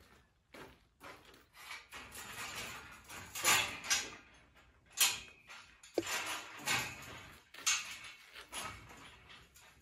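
Irregular scraping and rustling with a few sharp knocks, the sound of objects being handled and moved.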